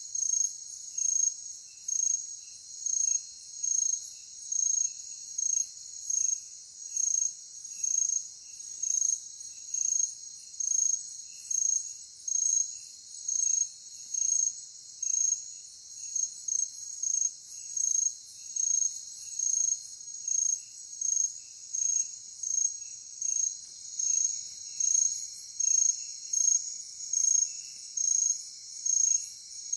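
Night insects, crickets chirping in a steady rhythm of a little more than one pulse a second, over a constant high-pitched shrill from other insects, with fainter, lower chirps in between.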